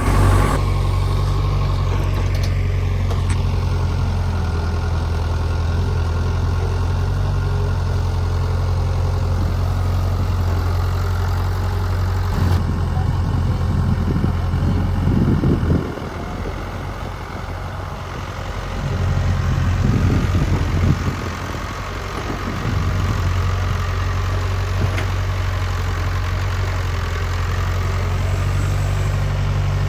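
Excavator's diesel engine running steadily with a low, even hum. About halfway through, the engine note dips for a couple of seconds, then swells again before settling back to its steady running.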